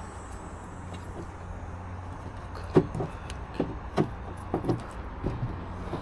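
A handful of short, sharp clicks and knocks, about six in the second half, from hands working a wire connector and parts at the car's tailgate, over a steady low hum.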